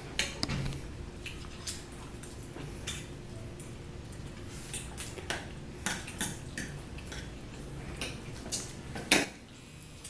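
Utensils clinking and scraping against bowls as people eat noodles: scattered irregular clicks, with one louder clink about nine seconds in.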